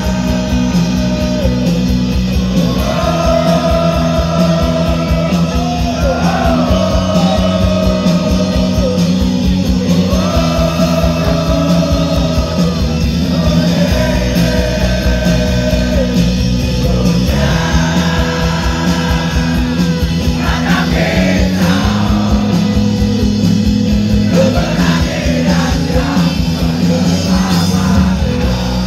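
Live rock band playing through a festival PA, heard from within the audience: electric guitars, bass, keyboard and drums under a male lead singer who sings phrases of long held notes.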